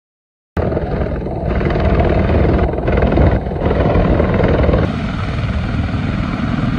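Military attack helicopters' rotors and turbine engines running loud and steady: a Mi-28 flying past, then Ka-52s with coaxial rotors turning on the ground. The sound cuts in suddenly about half a second in and shifts slightly about five seconds in.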